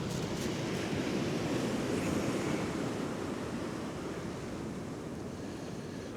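Sea swell washing against the pier: a steady rushing that builds about two seconds in and then eases off.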